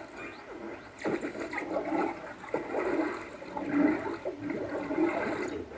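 Rushing, swirling water like a toilet flushing, growing louder about a second in.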